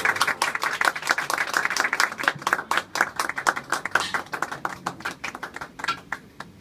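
Audience applauding after a song: many separate claps that thin out and die away near the end.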